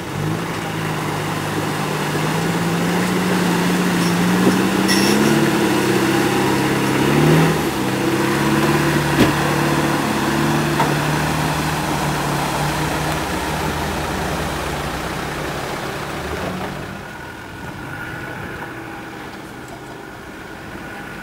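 Land Rover Defender engine pulling off-road. Its note rises over the first few seconds, dips and steps down, then runs steadily before dropping away about three-quarters of the way through. A few knocks and clunks come in the first half.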